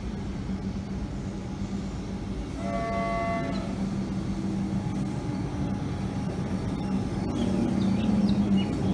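Comeng electric suburban train arriving at a platform, giving one short horn toot of about a second around three seconds in. Its steady hum and running rumble grow louder as it draws in.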